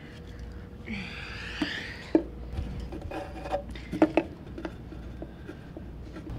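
Pencil scribbling and writing on paper on a wooden desk: a burst of fast scratchy scribbling about a second in, then shorter strokes and a few sharp knocks.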